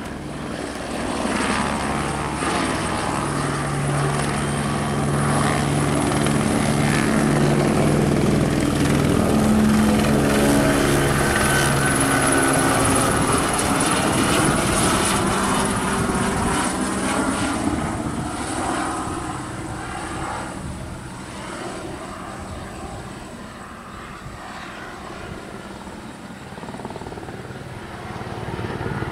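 Eurocopter AS350 B2 Astar helicopter flying overhead: main rotor beat and a high turbine whine. It grows louder in the first seconds, is loudest around the middle, fades after about 18 seconds as it circles away, and swells again near the end.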